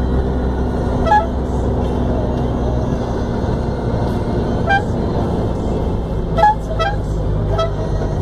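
Van engine and road noise heard from the driver's footwell, a steady low drone, with about five short horn toots scattered through it, the loudest a little past six seconds in.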